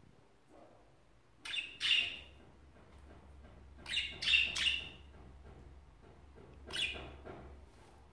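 Pet budgerigars giving short, sharp chirping calls in three quick clusters, about one and a half, four and seven seconds in.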